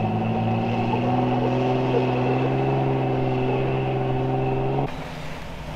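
Off-road vehicle's engine running steadily under load, its pitch creeping slowly up while crawling up a rocky trail. About five seconds in it cuts off abruptly to a quieter, hissy outdoor sound.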